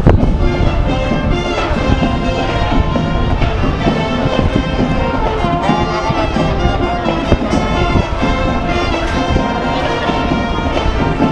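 Brass band music playing continuously over crowd and street noise.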